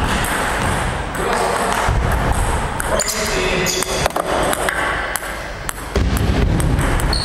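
Table tennis ball clicking off bats, the table and the floor: scattered sharp knocks, irregularly spaced, over a steady background hubbub.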